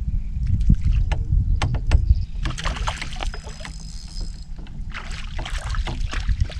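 Wind buffeting the microphone and water lapping against a boat's hull make a steady low rumble, with a few sharp ticks in the first couple of seconds. In the second half a hooked crappie splashes at the surface while being reeled in.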